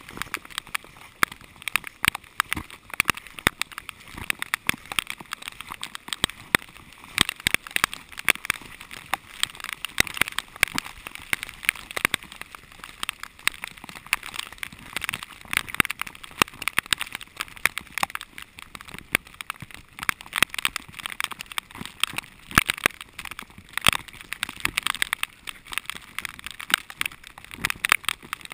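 Heavy rain: a steady hiss of rainfall with dense, irregular taps of raindrops striking the camera close to the microphone.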